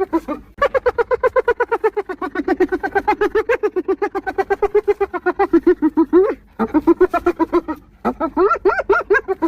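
Spotted hyena giggling: a fast run of short, yelping pitched notes, about eight a second, in one long bout of several seconds and then two shorter bouts after brief pauses.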